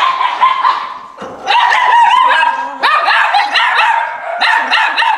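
Several puppies locked in cells yelping and whining at once, high-pitched overlapping calls, loud and continuous, with a brief lull about a second in.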